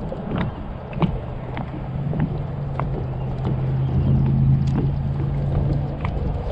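Small knocks and water slaps against a kayak hull, with a low steady hum that builds from about a second in, is strongest past the middle and fades near the end.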